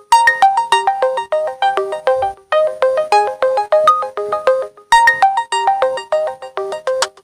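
Oppo A31 smartphone playing a ringtone preview: a quick electronic melody of short notes, about five a second, breaking off briefly and starting again about five seconds in.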